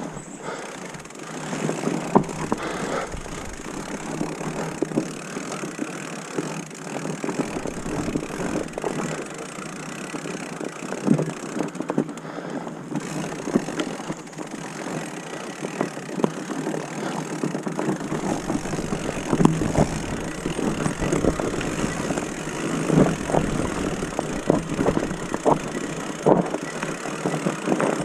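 Mountain bike rolling over a leaf-covered forest trail: steady tyre noise over leaves and roots, with frequent sharp knocks and rattles from the bike. It grows rougher, with more low rumble, partway through.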